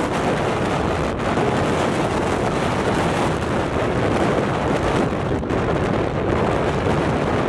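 Steady rush of wind on the microphone from travelling along a road, with the vehicle's running noise mixed in underneath.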